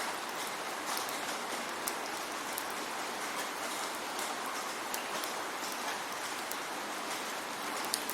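Steady rain falling, with scattered individual drops ticking sharply on a surface.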